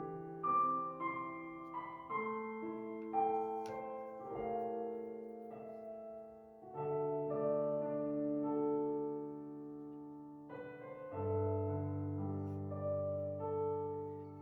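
Slow background piano music, with held chords and a new note or chord about every second.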